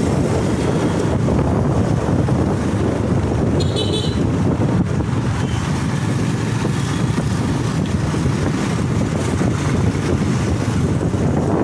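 Riding a motorcycle in city traffic: steady wind rush on the microphone over engine and road rumble, with a brief vehicle horn toot about four seconds in.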